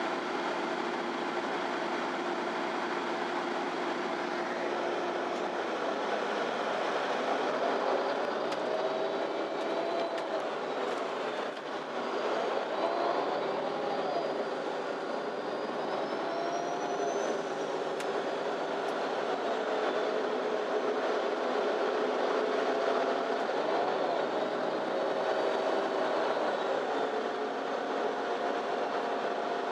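Inside a MAN Lion's City Ü intercity bus on the move: the running engine and drivetrain hum, with whining tones that rise and fall and step in pitch several times as the bus speeds up and slows, over steady road noise.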